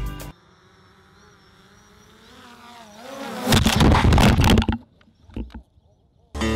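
Small drone's motors and propellers buzzing faintly, the pitch slowly climbing, then a loud rough rush about three and a half seconds in as the drone crashes into grass, followed by a few scattered knocks.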